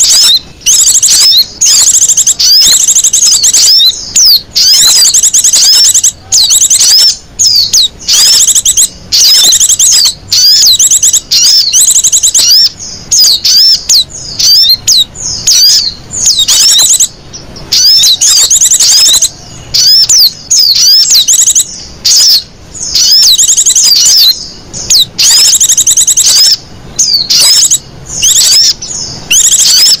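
Lure recording of small songbird calls: rapid, high chirps and quick sweeping notes in busy runs about a second long with short breaks between them, played very loud.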